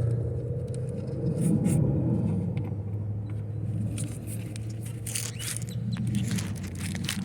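Scattered clicks and scrapes of metal parts being handled as a replacement alternator and its bolts are fitted, over a steady low rumble.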